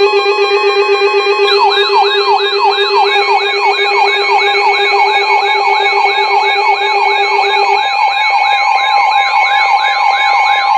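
Electronic emergency alert tones announcing a flash flood warning: several steady tones, including the NOAA Weather Radio warning alarm near 1050 Hz, layered with a fast, repeating up-and-down siren yelp that starts about a second and a half in. A low buzzing tone under them stops about eight seconds in.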